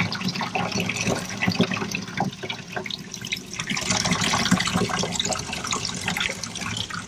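Running water splashing irregularly over ATV fuel pump parts as they are rinsed clean.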